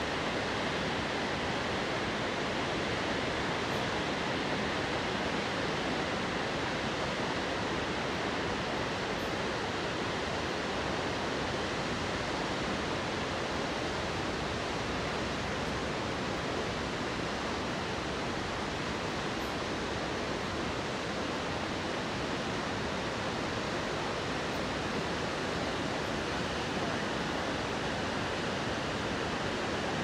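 Niagara River rapids rushing through the gorge: a steady, unbroken rush of white water.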